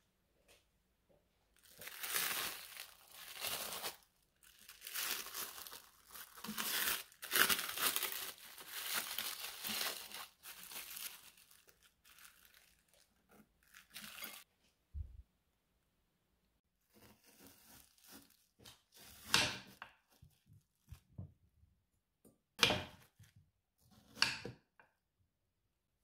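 Plastic cling film crinkling and crackling for about ten seconds as it is peeled back off a glass dish of frozen ice cream. Later, a few short, sharper scrapes as a metal spoon scoops the hard ice cream.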